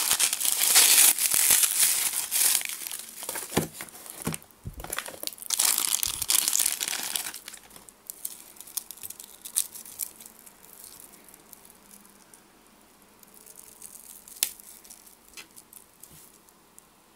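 Bubble wrap crinkling and crackling as hands pull it off a wristwatch, dense and loud for the first seven seconds or so. Then quieter handling of the bare watch follows, with a few light clicks.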